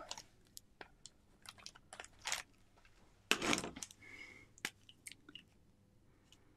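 Small clicks, taps and rustles of craft supplies handled on a desk, with a louder rustling clatter about three and a half seconds in, as pens are picked up and set down on a cutting mat.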